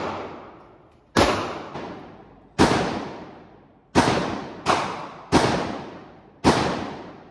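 Gunshots at a shooting range: six sharp shots at uneven spacing, some about a second and a half apart and a quick pair about two-thirds of a second apart, each echoing out over about a second.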